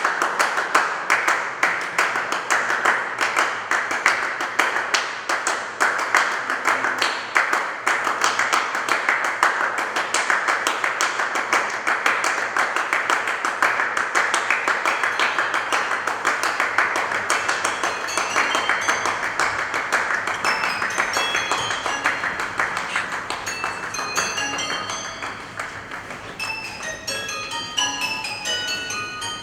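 Live percussion music: a dense, fast clatter of many quick strikes. About two-thirds of the way in it thins out and gives way to short, high ringing notes from tuned percussion.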